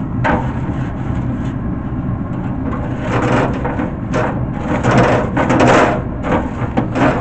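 Nylon-bristle grill brush scrubbing hot ceramic-coated grill grates in uneven, rough scraping strokes, over a steady low hum.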